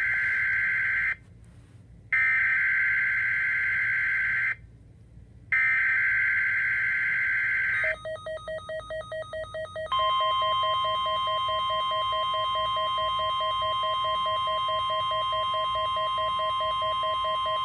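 NOAA Weather Radio required weekly test signal. It opens with three bursts of screechy SAME digital header data, then about two seconds of rapid beeping at about five beeps a second. After that comes the steady 1050 Hz warning alarm tone, held for about eight seconds.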